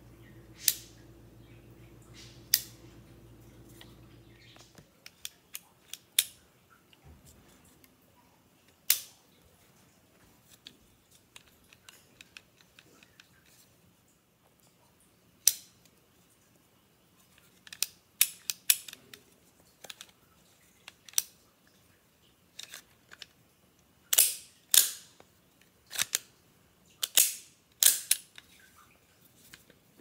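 Sharp metallic clicks, some single and some in quick runs, from the three-position selector switch of a homemade URU SMG dummy snapping between its detented positions as the pressure fork rides over the cam lobe. The loudest clicks cluster near the end.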